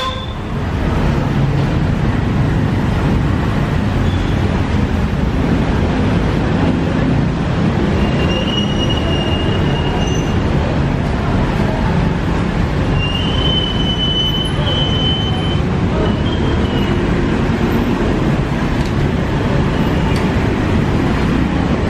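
Steady street traffic noise, a continuous rumble of passing vehicles, with a few brief high-pitched squeals lasting a second or two.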